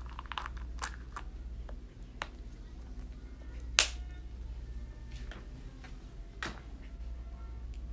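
Hollow plastic Easter eggs being handled and snapped shut: scattered sharp plastic clicks, with a loud snap a little under four seconds in and another about six and a half seconds in.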